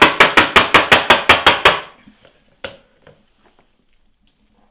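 Metal loaf tin full of parfait mixture knocked rapidly and repeatedly on the worktop, about six knocks a second, to settle and compact the mixture. The knocking stops about two seconds in, followed by one single knock and a few faint clicks.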